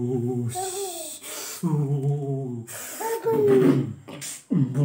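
A man humming a wavering sing-song tune without words, broken by long drawn-out hissing sounds. Near the middle a higher voice slides down once.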